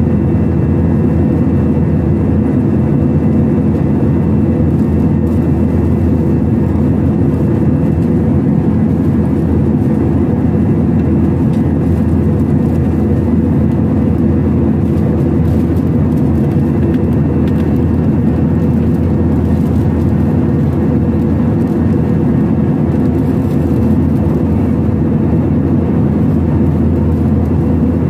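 Steady jet-engine and airflow noise inside an airliner's cabin in flight: a constant low drone with faint steady tones and no change over the whole stretch.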